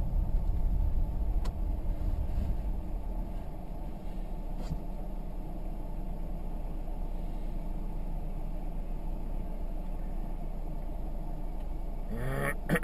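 A car driving along: a steady low rumble of road and engine noise, with a brief sound that bends in pitch near the end.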